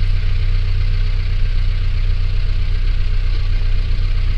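A vehicle's engine running steadily, a low even drone.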